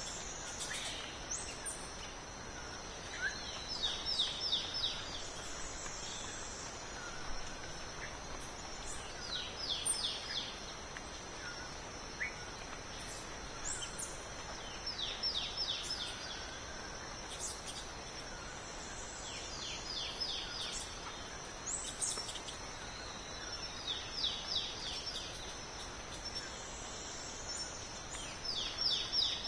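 Forest ambience: a steady high insect hum, with a short series of four or five quick high chirps coming back about every five seconds.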